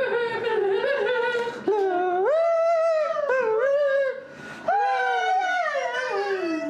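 A person singing without words in a high, wavering, howl-like voice: three long held phrases that glide up and down, the last one sliding down at the end.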